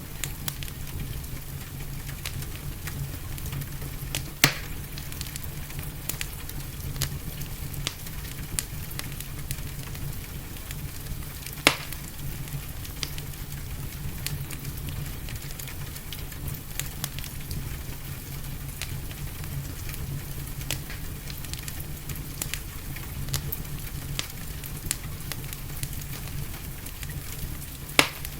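Wood fire in a fireplace crackling, with many small irregular crackles and a few sharper pops (about four seconds in, near the middle and near the end), over a steady hiss of gentle rain.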